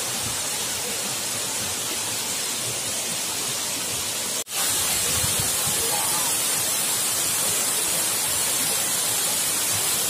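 A waterfall pouring down a rock face into a pool: a steady, even rush of falling water that drops out for an instant about halfway through and comes back a little louder.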